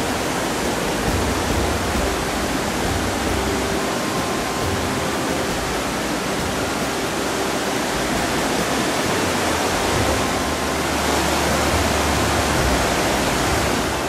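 Fast mountain stream rushing over rocks in white-water rapids: a steady, loud rush of water.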